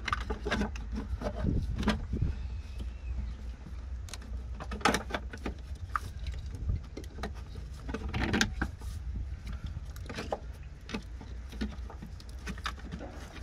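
Irregular clicks, clinks and light knocks of tools and parts being handled during reassembly, over a steady low hum.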